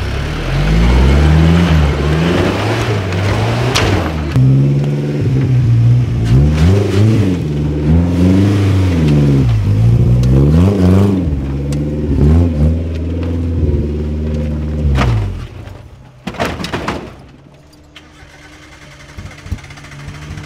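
Modified off-road 4x4 trial vehicle engines revving hard, the pitch rising and falling again and again as the vehicle works through mud. About fifteen seconds in, the revs drop away to a low idle, with a few sharp knocks.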